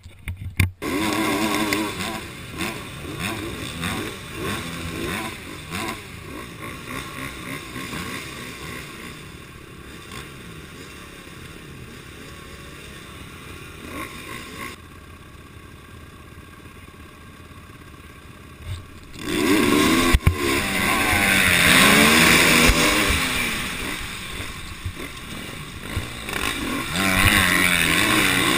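Several enduro motorcycle engines running and blipping on the start line, then revving hard together about two-thirds of the way in as the race starts, their pitch sweeping up and down under acceleration.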